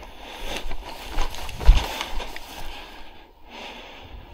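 Close-up breathing and rustling of a person moving through long grass, with a low bump about a second and a half in.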